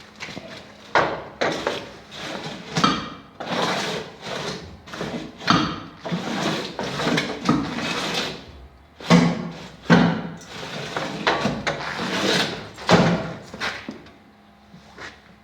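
Irregular scraping and knocking of brick mix being loaded into the mould of a Lego brick press, dying down near the end.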